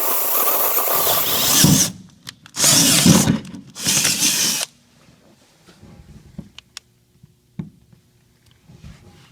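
Power drill boring holes through the pickup's bed for the air-tank mounts: one run that stops about two seconds in, then two short bursts. After them come a few light clicks and taps.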